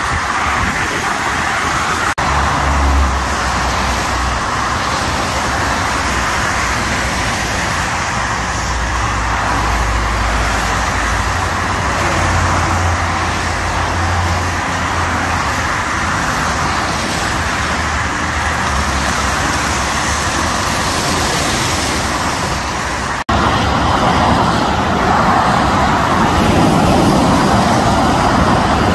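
Steady freeway traffic on wet pavement: a continuous hiss of tyres on the wet road with the low rumble of passing cars and trucks, heaviest in the first half. The sound changes abruptly about two seconds in and again near 23 seconds.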